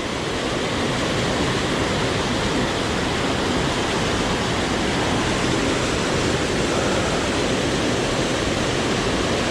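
Small mountain creek running: a steady, even rush of water.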